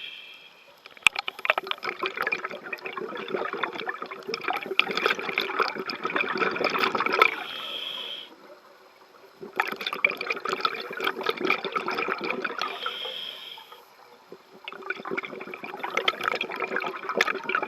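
Scuba diver breathing through a regulator underwater: long bursts of exhaled bubbles bubbling and crackling, three times, each followed by a short, quieter inhalation.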